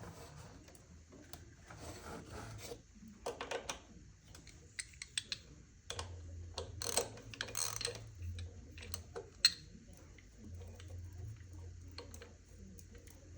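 Hand tools and engine parts being handled: scattered light clicks, rattles and rubbing, with one sharp click about nine and a half seconds in.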